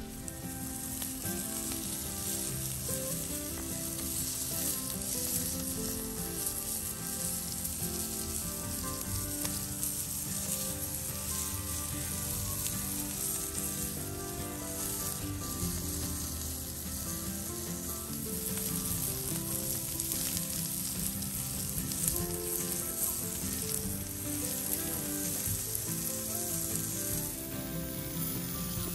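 Chicken wings sizzling and spitting on a stainless steel grill grate over a wood campfire, a steady crackling sizzle.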